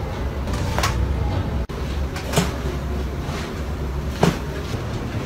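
Joints popping during chiropractic manipulation: three short sharp cracks about a second and a half apart, the last the loudest, over a steady low hum.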